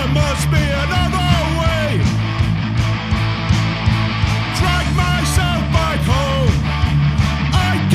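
Recorded punk rock song played by a full band: guitars, bass and drums at a steady loud level, with a melodic line that slides and bends over the top.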